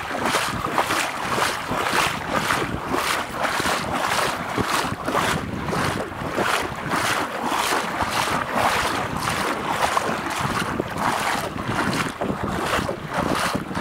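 Feet wading through shallow water, splashing in a steady rhythm of about two steps a second.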